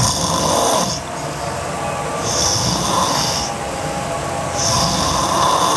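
A girl snoring hard in her sleep: three heavy breaths about two seconds apart, each with a loud hissing rush of air.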